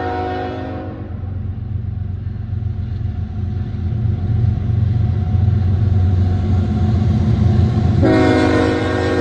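Horn of an approaching pair of Canadian National diesel freight locomotives. A chord blast fades out about a second in, the low engine rumble then grows louder as they near, and a second chord blast of about two seconds starts near the end.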